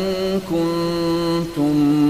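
Melodic Quran recitation in tajweed style: one voice holding long, steady notes, stepping to a new pitch about half a second in and again about a second and a half in.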